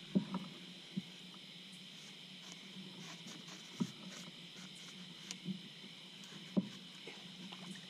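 Four sharp knocks from a landing net's pole being handled against a small boat's side, over a steady background hum.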